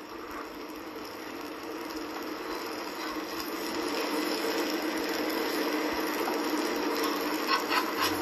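Dosa sizzling on a hot tawa, the hiss growing steadily louder. Near the end a metal spatula scrapes and taps against the griddle as the dosa is loosened.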